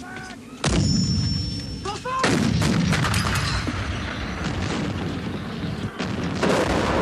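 Gunfire and explosions in battle: a sudden loud blast about half a second in, then a dense run of rapid shots from about two seconds in, swelling again near the end.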